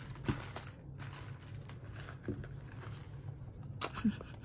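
Coffee beans being poured from a crinkly bag into the clear chamber of a stainless-steel pepper grinder: the bag rustles and the beans rattle. A few sharp clicks come as the grinder is handled, with a cluster near the end.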